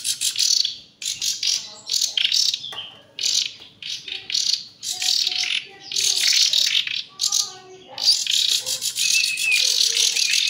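Nightingale chicks giving repeated raspy begging calls in bursts with short pauses, begging for food as they are hand-fed.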